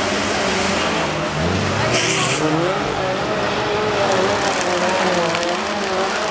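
Car cross race cars' engines running hard on a dirt track, their pitch rising and falling as they rev through the bend, with a short hiss about two seconds in.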